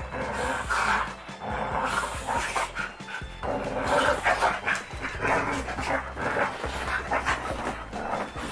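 Two dogs play-fighting, making rough-play noises and panting in irregular spurts.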